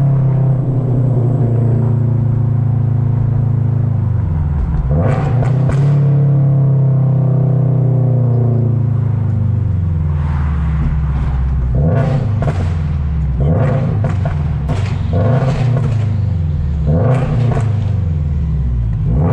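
Straight-piped Toyota GR86's 2.4-litre flat-four exhaust, heard from inside the cabin. The revs fall steadily for the first few seconds. From about halfway on, the revs climb and drop again and again, with sharp bursts at the tops as the car pulls through city traffic.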